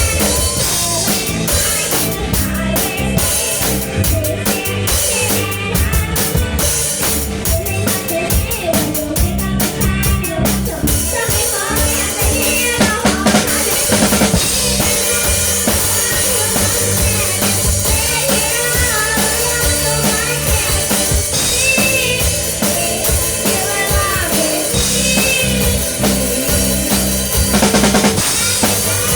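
Live rock band playing: a drum kit with bass drum and snare drives the beat under bass, electric guitar and keyboard. About twelve seconds in, a lead line that bends in pitch comes in over the band.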